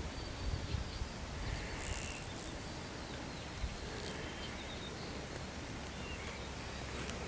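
Quiet outdoor ambience: small birds chirping briefly, a short high hiss about two seconds in, and a few low rumbles on the microphone early on.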